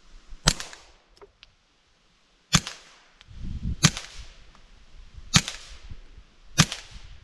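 .22 pistol fired five times as single shots, spaced unevenly about one to two seconds apart.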